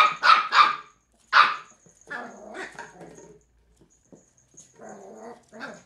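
Cairn terrier puppy barking at an empty plastic bottle in play: three quick, loud barks at the start and one more about a second and a half in, then quieter, lower vocal noises.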